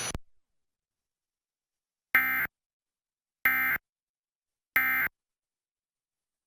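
Emergency Alert System end-of-message signal: three identical short bursts of digital data tone, about a second and a quarter apart, the coded burst that closes an EAS test transmission.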